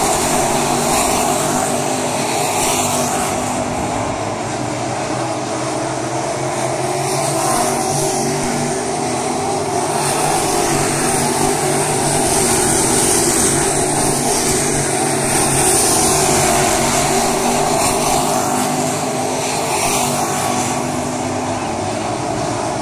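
A field of crate-engine dirt late model race cars at racing speed, their V8 engines blending into one steady, loud drone that swells and eases slightly as the pack goes by.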